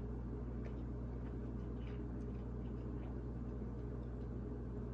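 Quiet room tone: a steady low hum with a few faint, soft ticks.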